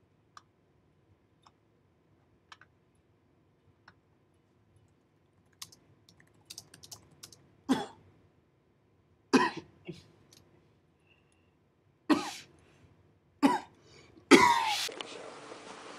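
A young man coughing into his fist, about five separate coughs starting about eight seconds in, the last one the loudest. Faint scattered clicks come before the coughs.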